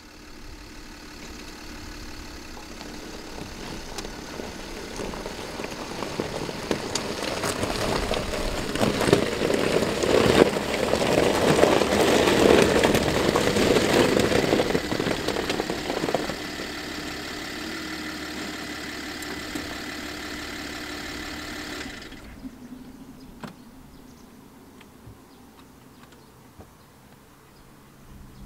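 SUV driving onto a gravel riverbank: engine and tyre noise grow louder to a peak about 10 to 15 seconds in. The engine then idles steadily and is switched off about 22 seconds in, leaving quiet outdoor ambience with a few faint ticks.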